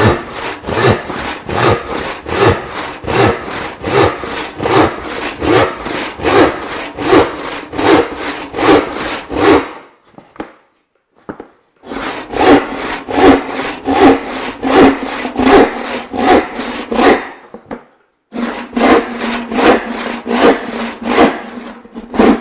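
Hand rip saw cutting along the grain of a radiata pine board in steady, rhythmic strokes, about three a second. The sawing breaks off twice for a second or two while the board is shifted forward, then carries on.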